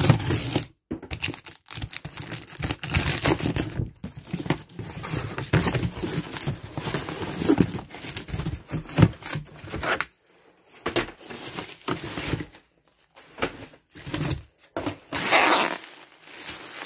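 Packaging being pulled apart: packing tape tearing, cardboard handled and plastic bubble wrap crinkling, in irregular bursts with two short pauses about two-thirds of the way through.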